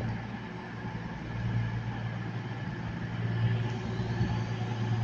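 CrossCountry Class 220 Voyager diesel multiple units idling at the platform: a steady low hum from their underfloor diesel engines, swelling slightly in the second half.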